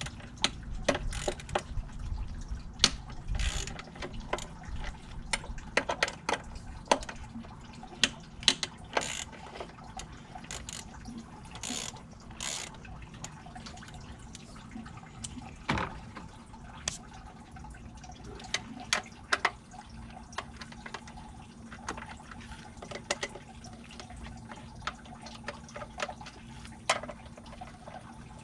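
Hand ratchet with a socket backing out the throttle body bolts, with scattered sharp clicks and metallic clinks of tools and parts being handled.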